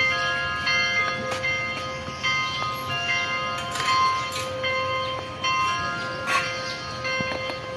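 Background music: a bell-like melody of held notes.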